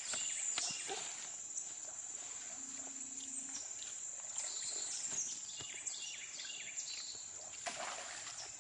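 Creek-side ambience: a steady high-pitched insect drone with many short, falling bird chirps, and light water splashing from wading in shallow water near the end.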